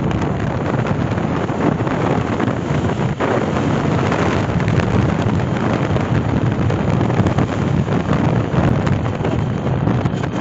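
Steady wind rush buffeting the microphone of a motorcycle riding at highway speed, with the bike's running and road noise underneath.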